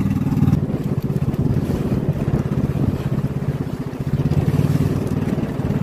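Engine of a motorized outrigger boat (bangka) running steadily under way, with water rushing along the hull and outriggers.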